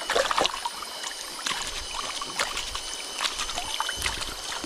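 Flowing river water with many sharp, irregular splashes close by.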